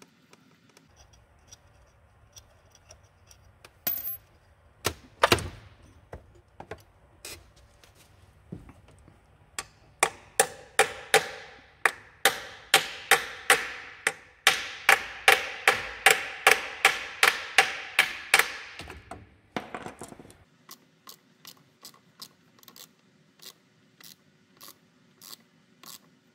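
Hammer striking a socket down onto a rounded bolt on the crankshaft pulley, to get a grip on it. A few single blows come first, then a long run of ringing metal strikes at about two a second. Fainter regular clicks follow near the end.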